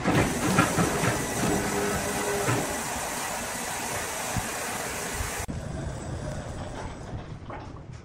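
Chainsaw running, a loud hissing, clattering noise that cuts off abruptly about five and a half seconds in, leaving quieter machine noise with a few knocks.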